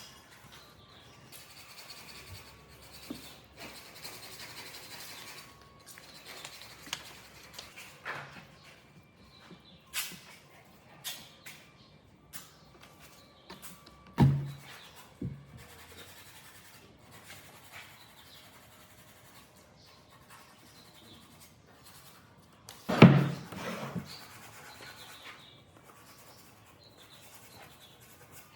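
Wood being handled and worked by hand: scattered knocks and clicks with some scraping or rubbing, and two louder thumps, one about halfway through and one about three-quarters of the way through.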